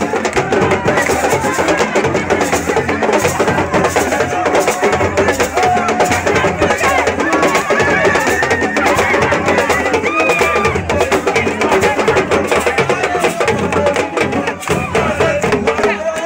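Drums played in a fast, dense rhythm, with voices singing or calling over them.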